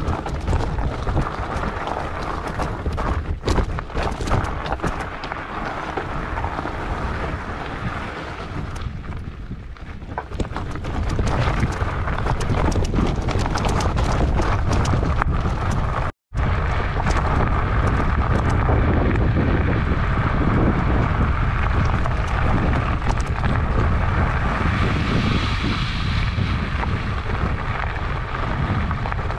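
Fatbike tyres rolling over a loose, rocky gravel track, with many rattles and clicks from stones and the bike, and wind rushing on the microphone. About ten seconds in the rush turns louder and steadier, and the sound cuts out for a moment about sixteen seconds in.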